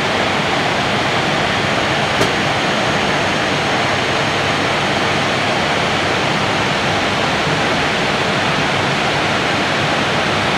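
Steady rushing noise of airflow and cabin air inside a jet airliner's cockpit at cruise, around Mach 0.77. A faint click about two seconds in.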